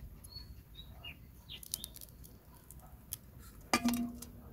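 Faint clicks and crunches of a knife cutting the heads off raw shrimp over an aluminium bowl, with short bird chirps in the background. A brief louder sound comes near the end.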